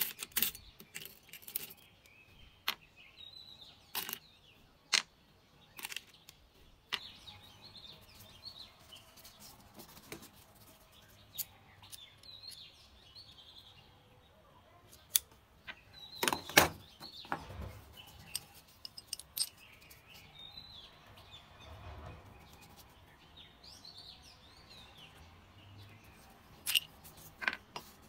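Small metal parts and hand tools clicking and tapping as they are picked out with tweezers and handled with digital calipers. Scattered sharp clicks, a cluster of the loudest about sixteen seconds in.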